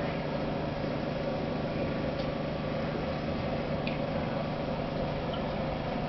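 Steady hum of running aquarium equipment, several fixed tones over a soft hiss, with a few faint ticks.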